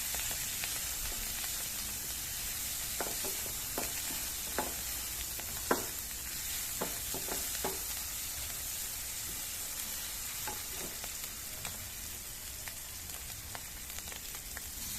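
Ground spice paste of shallots, garlic, candlenut, chili and ginger sizzling steadily in hot oil as it is sautéed until browned, with scattered clicks of a spatula stirring against the pan, the loudest a little over halfway through.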